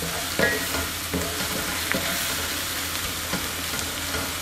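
Chopped onion and garlic sizzling steadily in oil in a nonstick pan over medium heat, with a wooden spatula scraping and tapping the pan bottom in short strokes as it is stirred. This is the sauté stage, frying the garlic until its aroma comes out.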